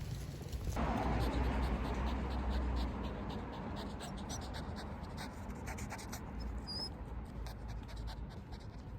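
A small dog scratching and rustling about, with many light ticks such as claws on a floor.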